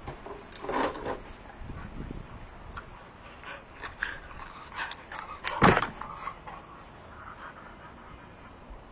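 A dog panting as it trots up, with light handling noises and one sharp knock a little past halfway, the loudest sound.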